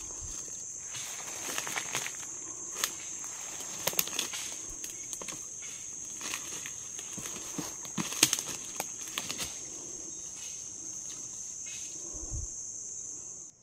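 A steady, high-pitched chorus of rainforest insects, with irregular crackling and snapping of footsteps through leaf litter and brush.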